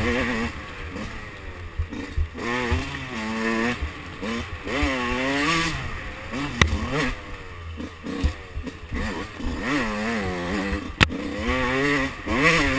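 2005 Yamaha YZ125's 125 cc single-cylinder two-stroke engine being ridden hard on a trail, revving up and backing off over and over as the throttle is worked. Two sharp knocks sound in the second half.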